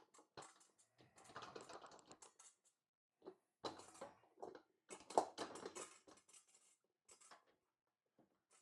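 Scattered metal clicks, taps and scrapes from working a stuck motorcycle wheel axle loose by hand, with one sharper knock about five seconds in.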